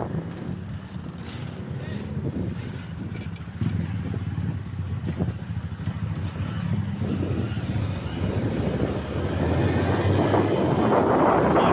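Motorcycle engine running steadily at low speed, with wind rushing over the microphone that grows louder near the end.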